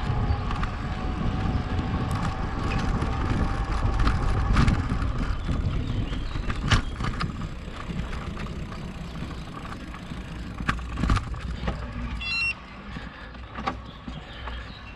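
Electric mountain bike ridden over rough ground: steady tyre and wind rumble with scattered knocks and rattles from the bike over bumps. A short high beep sounds near the end, just as the rumble eases.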